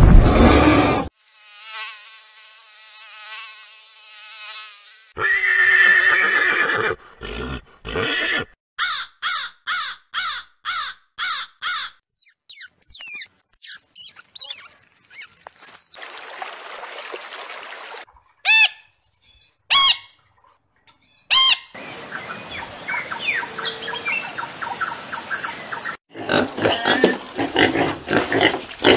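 A series of different animal calls and cries, cut together one after another: pitched calls, a quick run of repeated call notes, and high sweeping whistles and chirps, each segment ending abruptly.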